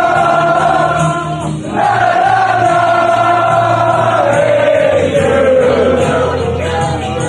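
A crowd of fans singing a chant together in long held notes, with a short break about a second and a half in and the pitch sliding down near the end.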